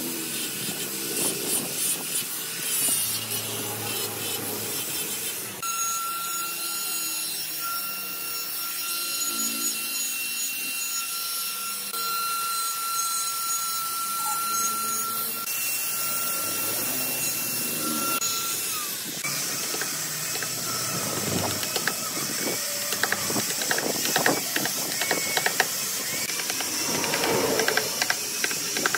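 Power tools working hardwood: an angle grinder with a sanding disc rubbing across the wood, then a high-speed electric die grinder running with a steady high whine that winds down about two-thirds of the way through. Rough grinding follows, and near the end a wooden mallet strikes a chisel several times.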